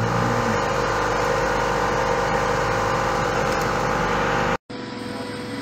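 Steady mechanical hum of a running motor or fan, with several pitches layered in it. Near the end it cuts out for an instant and comes back quieter.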